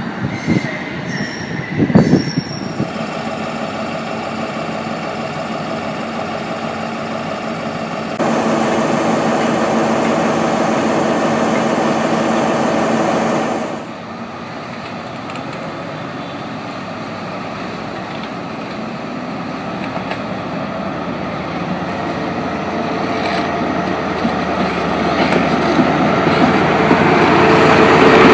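Class 43 HST trains running into a station, their diesel power cars humming steadily as they approach, heard in a few spliced clips. There are a couple of sharp knocks near the start, and the sound grows louder near the end as a power car draws close alongside.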